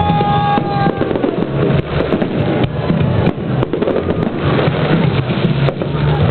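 Fireworks display: a dense, irregular run of bangs and crackles from bursting shells.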